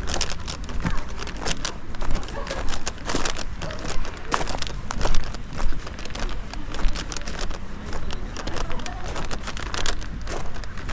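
Busy, irregular clatter and rustling, many quick clicks and knocks, with indistinct voices behind.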